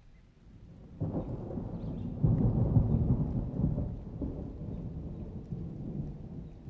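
Thunder rumbling: a low roll comes in about a second in, swells to its loudest a little over a second later, then rolls on and slowly fades.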